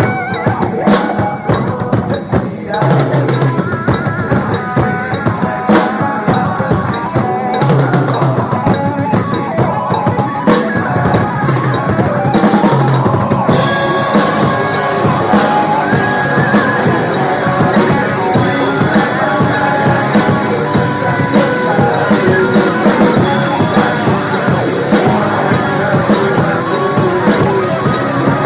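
Drum kit played along to a recorded Christian rock song. The music grows fuller and brighter about 13 seconds in.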